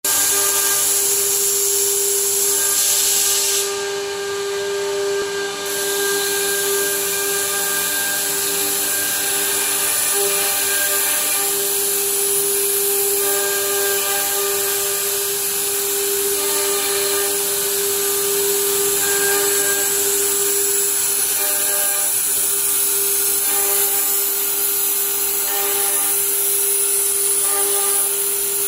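CNC router's HQD air-cooled spindle running at high speed while engraving a sheet, a steady whine with several higher tones over a strong hiss of cutting and dust extraction.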